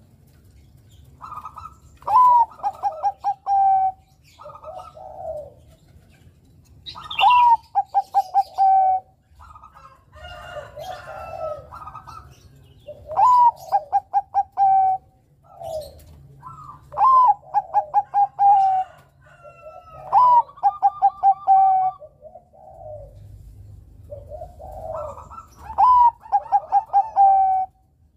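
Zebra dove (Bangkok perkutut) singing its cooing song six times, each phrase a rising note followed by a quick run of short coos, with softer, lower coos in between.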